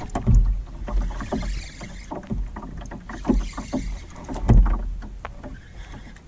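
Irregular knocks and thumps of gear and movement in an aluminium-free fishing canoe...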